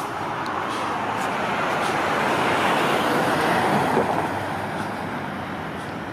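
A road vehicle passing by, its tyre and engine noise swelling to a peak about three to four seconds in and then fading away.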